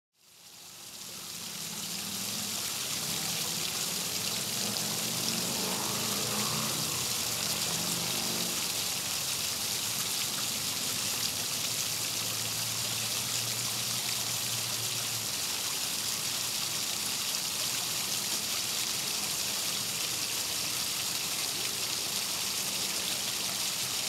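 Backyard waterfall splashing and trickling over stacked stone ledges into a pond: a steady rush of water that fades in over the first couple of seconds.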